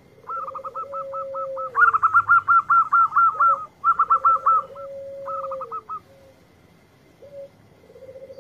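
Zebra dove (perkutut) cooing: a quick run of short, clipped notes, loudest a couple of seconds in, then breaking up and stopping about six seconds in. Under them is a lower, drawn-out coo with a falling end that repeats about every three and a half seconds.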